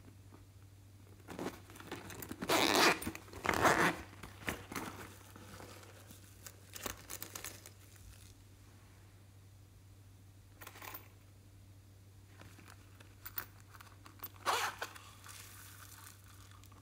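Zipper on a small zippered pouch being pulled open in two long rasps, followed by scattered clicks and rustles of the pouch and its contents being handled.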